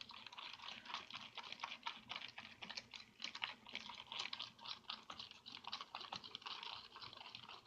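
Rapid, irregular small wet clicks and squelches of a sticky homemade slime mixture of glue, corn syrup and salt being worked.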